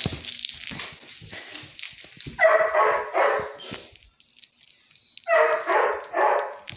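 Puppy barking during play: two bouts of three or four quick, raspy barks, the first about two and a half seconds in and the second about five seconds in.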